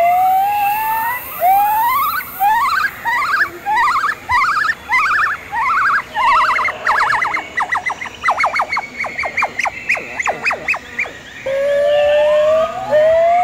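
Gibbon singing: a series of rising whooping notes that get shorter and faster, speeding up into a rapid run of short notes. After a brief pause about eleven seconds in, it starts a new phrase with long rising notes.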